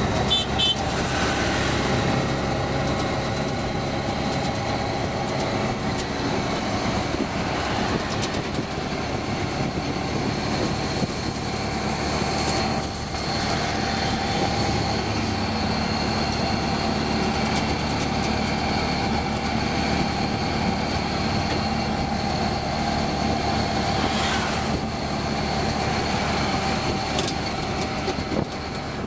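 Auto-rickshaw's small engine running steadily under way, heard from inside the open-sided cab along with road and wind noise.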